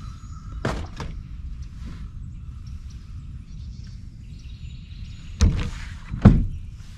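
Knocks from handling a plastic tackle box on a boat deck: one about a second in, then two hard knocks near the end, the second the loudest, over a steady low rumble.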